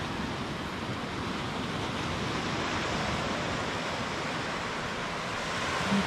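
Sea surf washing onto a sandy beach: a steady rush of noise that swells a little midway.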